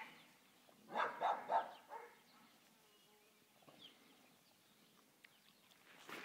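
Dogs at play: a quick run of about three barks about a second in, then quiet.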